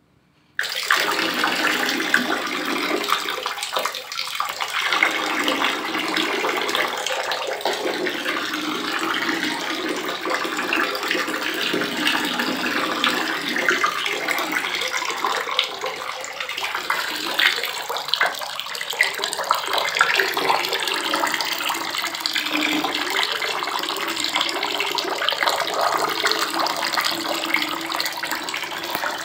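Water running in a steady stream and splashing onto a heap of raw green mangoes on a wooden board as they are washed, starting about half a second in.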